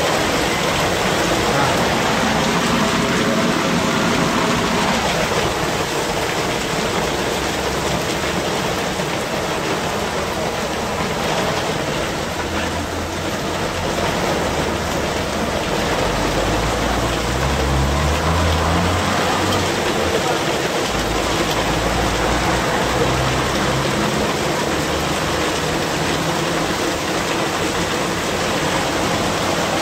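Heavy rain mixed with small hail pouring down onto a wet street, a steady hiss. Just past halfway a car engine is heard low down, briefly rising in pitch.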